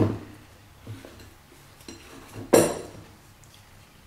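Knocks and clunks as an 800-grit whetstone is unclamped from its stone holder and set down on a table: one sharp clunk at the start, a few lighter knocks, then the loudest clunk with a brief metallic ring about two and a half seconds in.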